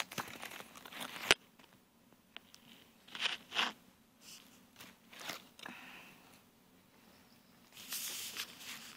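Scattered rustles and clicks of things being handled and moved on a floor mat close to the microphone, with one sharp knock about a second in and more rustling near the end as the camera is jostled.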